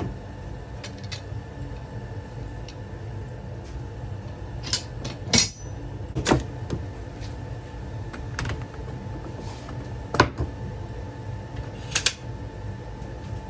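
Bar clamps and wood being handled on a workbench: about half a dozen sharp metallic clinks and knocks, spread out, over a steady low hum.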